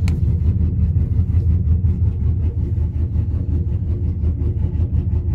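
2001 Chevy Silverado's engine on long-tube headers and a 3-inch straight pipe, idling with a steady, low exhaust drone heard from inside the cab.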